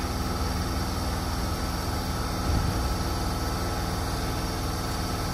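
Steady hum of a Hokuso Railway 7500 series electric train standing at an underground platform with its doors open, with a faint steady tone over it and a brief low thump about two and a half seconds in.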